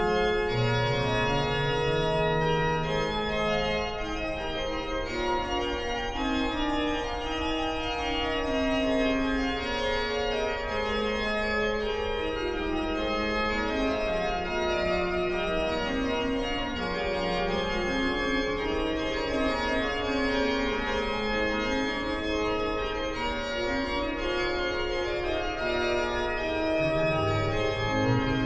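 Gottfried Silbermann's 1714 pipe organ playing continuous music in several voices, with held notes; low pedal notes come in near the end.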